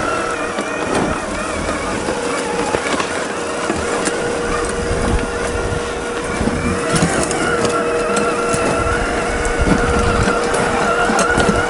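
Tamiya CC-01 RC car's 55-turn brushed electric motor and gearbox whining as it drives, with the tyres crunching over rough ground. The whine gets stronger and climbs a little in pitch in the second half.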